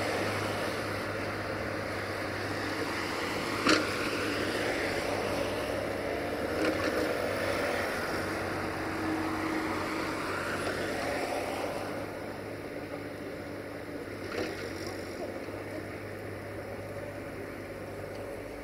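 Caterpillar 302.5C mini excavator's diesel engine running steadily as the machine digs, with three sharp knocks from the working arm and bucket, the loudest about four seconds in.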